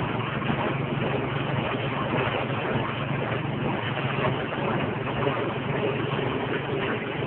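Engine-driven grinding machine, rated at 6.5 hp, running steadily while it pulverises dry soybean husks into fine powder. It makes a constant low hum under a dense, rattling hiss.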